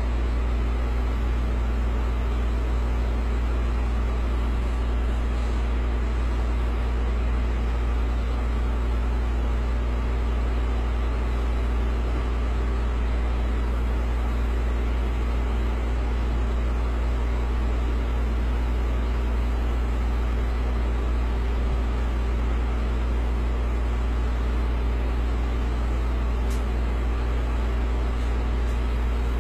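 Steady low drone with a faint hum from an unseen machine, unchanging throughout.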